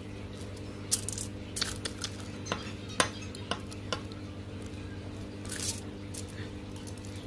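A metal spoon tapping and scraping on aluminium foil as it spreads and presses raw ground-pork embutido mixture flat, giving a string of irregular clicks and short scrapes, the sharpest about three seconds in.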